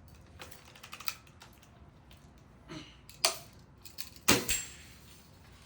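Daisy Red Ryder spring-air BB guns clicking and snapping as they are fired: a few light clicks, then a sharp snap about three seconds in and the loudest crack about a second later.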